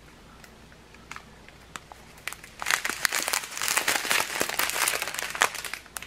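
Clear plastic bags of small square diamond-painting drills being handled: the plastic crinkles and the drills shift inside. A few faint ticks at first, then steady crinkling from a little over two seconds in.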